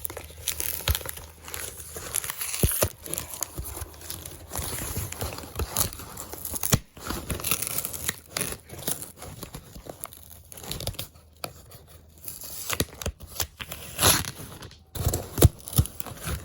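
Paper being torn and crinkled by hand in irregular rustles and rips, as a letter is opened.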